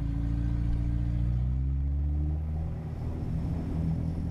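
Volvo engine running at low revs with its exhaust ripped off: a deep, steady drone that sags slightly partway through and picks up again near the end.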